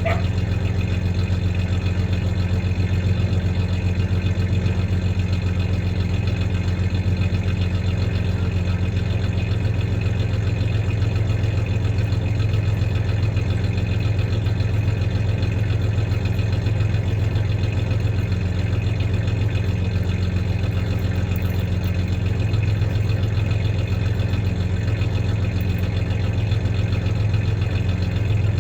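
1993 Ford Ranger's 3.0-litre Vulcan V6 idling steadily with a slight misfire.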